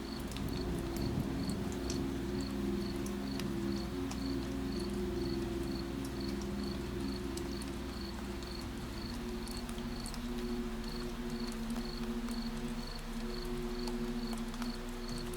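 A cricket chirping steadily, a short high chirp roughly every half second, over scattered light raindrop ticks and a low, steady sustained hum of tones.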